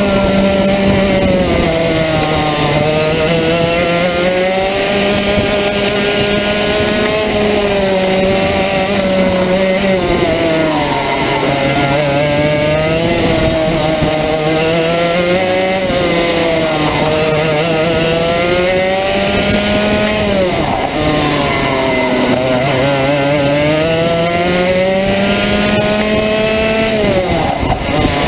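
Rotax 125 Max two-stroke kart engine heard close up from on the kart at racing speed, its pitch climbing under acceleration and dropping sharply into each corner, several times over.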